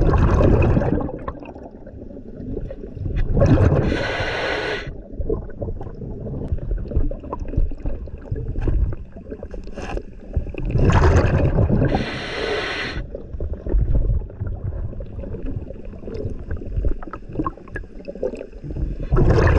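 A scuba diver breathing through a regulator underwater: slow, regular breaths about every eight seconds, each one followed by exhaled bubbles, over a low rumble.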